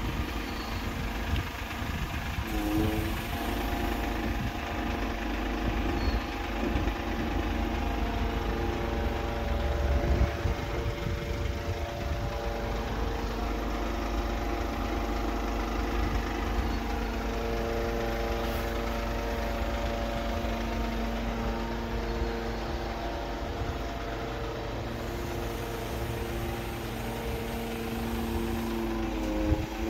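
Mercedes-Benz Sprinter 513 diesel engine running at a steady idle with a humming tone. The pitch shifts briefly about three seconds in and again near the end.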